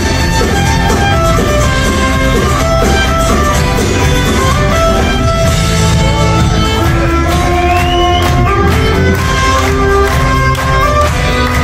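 Folk-punk band playing live, a fiddle leading the melody over electric guitars and drums.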